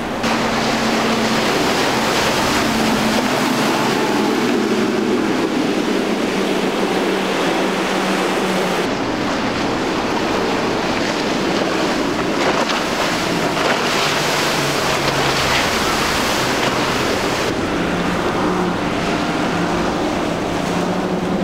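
Powerboat engines running at speed through choppy water, mixed with the rushing hiss of surf, spray and wind noise on the microphone. The engine hum changes pitch twice. Near the end the engines are the twin Yamaha 250 hp outboards of a Sea Hunt center console.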